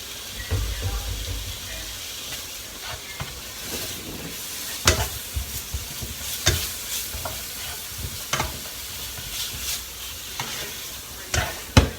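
Sliced chicken thigh and zucchini sizzling steadily in a frying pan as they are stirred, the utensil knocking sharply against the pan now and then, twice in quick succession near the end.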